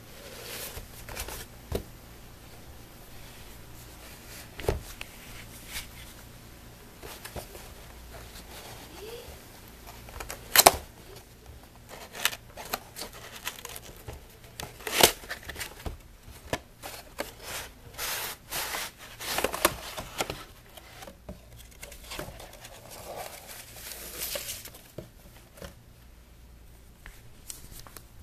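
A cardboard box being handled and opened by hand: scattered knocks, taps and scrapes of the carton and its flap, with rustling and crinkling of the packaging. The sharpest knocks come about ten and fifteen seconds in.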